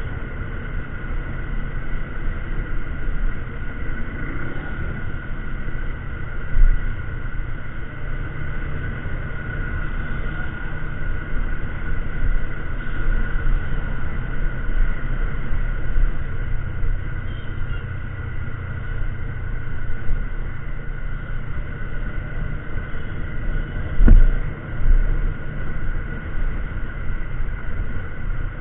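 TVS Apache 200 4V single-cylinder motorcycle cruising at about 55 km/h, its engine running steadily under wind noise on the handlebar-mounted camera. Two short thumps cut through, one about 7 s in and one near the end.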